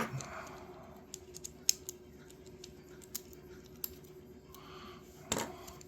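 Scattered small clicks and taps of a folding knife's metal parts and handle scales being handled and worked apart, with a louder knock near the end.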